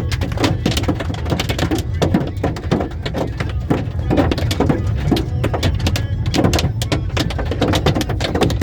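Hail pelting down: a dense, irregular clatter of many hard impacts over a steady low rumble.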